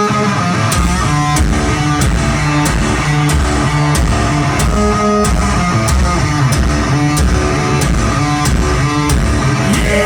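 Live rock band playing an instrumental passage: electric guitar and bass riff over a steady drum beat, with a drum hit about every two-thirds of a second.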